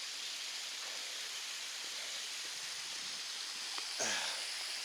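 Small trail runoff stream flowing steadily down toward a little waterfall, a constant rush of water. Near the end, a brief sound with a falling pitch.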